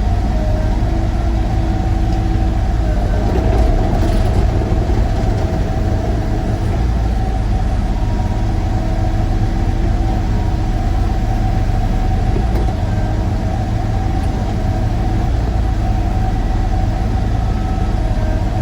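Sany excavator's diesel engine running steadily, a low rumble with a steady whine over it.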